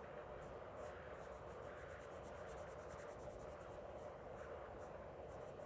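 Soft-core Prismacolor colored pencil (cool gray 30%) shading on paper in quick, faint back-and-forth strokes.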